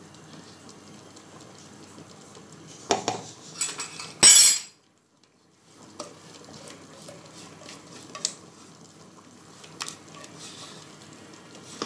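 A spatula scraping thick chocolate cake batter out of a mixing bowl into a bundt pan, with utensil-on-bowl clinks and knocks. The loudest clatter comes about four seconds in and is followed by about a second of dead silence; a few sharp knocks come later.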